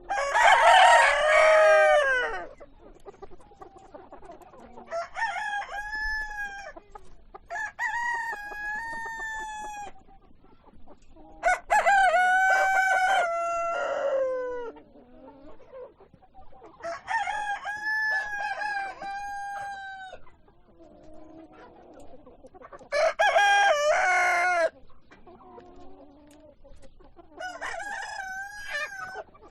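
Rooster crowing over and over, about seven long crows a few seconds apart, the first and one near the end the loudest, with hens clucking softly between the crows.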